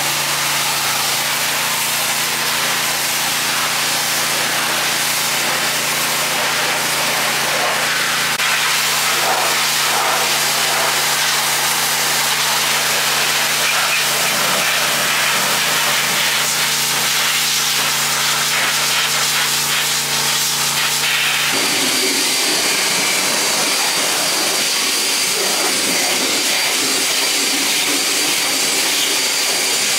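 Pressure washer spraying water onto a car's front frame: a steady hiss of spray over the washer's steady motor hum. About two-thirds of the way through the sound cuts to a handheld leaf blower, a steady rush of air with a thin high whine.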